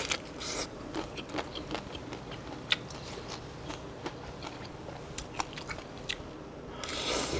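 A person biting and chewing a large cooked shrimp, with scattered crisp clicks and crunches throughout, growing louder and noisier near the end.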